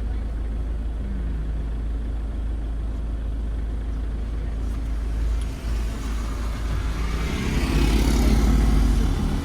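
Car driving: a steady low engine and road rumble that grows louder and fuller over the last two seconds.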